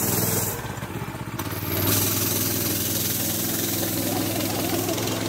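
Go-kart's small engine running as the kart drives off. The engine note drops back about half a second in, picks up again near two seconds, then holds steady.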